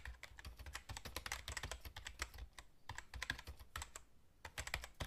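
Typing sound effect: quiet, rapid, irregular key clicks in short runs with brief pauses, matching on-screen text being typed out.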